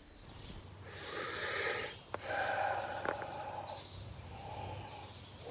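A man taking deep, audible breaths through his mouth: two long breaths of about a second each.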